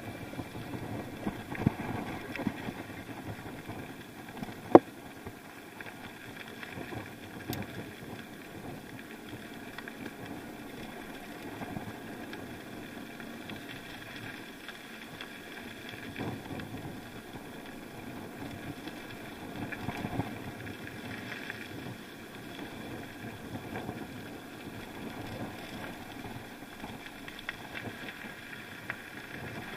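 A bike rolling down a rough dirt track, heard from a camera mounted on it: a steady rumble of tyres on gravel with constant small rattles, a loud sharp knock about five seconds in, and wind on the microphone.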